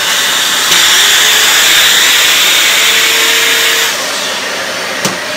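Dyson Light Ball Animal upright vacuum cleaner running. Its rushing airflow and motor hum grow louder for about three seconds, then settle back, and a sharp click comes near the end.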